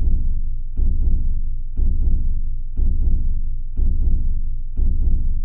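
Background music built on a deep double drum beat, two quick booming hits repeating about once a second in a heartbeat rhythm.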